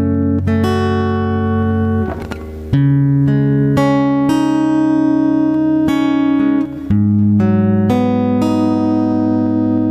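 Instrumental karaoke backing music with no vocal: guitar-like plucked notes over sustained chords and a steady bass. The chords change after brief dips at about two and seven seconds in.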